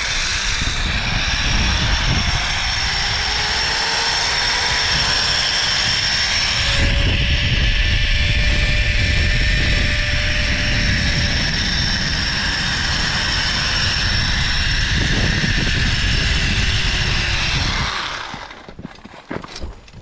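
Zip-line trolley pulleys running along a steel cable: a whirring whine that rises in pitch over the first few seconds, holds steady, then falls as the trolley slows, with heavy wind buffeting the microphone. It dies away about eighteen seconds in, as the ride ends at the platform.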